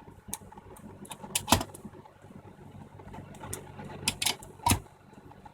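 Sharp clicks and knocks from handling a mini PC's case and small mounting screws during reassembly: one about one and a half seconds in and three more close together near the end, over a low steady hum.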